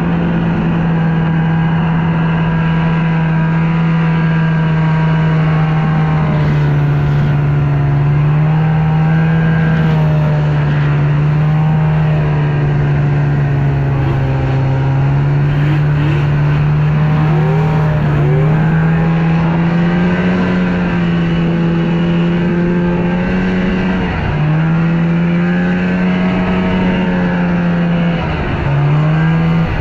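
Snowmobile engine running steadily at a fast idle, its pitch wavering slightly. Twice near the end the pitch dips sharply for a moment and recovers.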